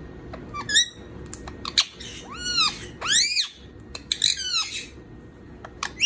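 Indian ringneck parakeets calling: a few short chirps, then two arching calls that rise and fall in pitch about two and three seconds in, a rasping chatter about four seconds in, and sharp clicks near the end.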